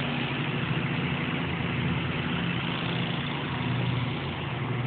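Honeybees buzzing around an open hive: a steady, low droning hum.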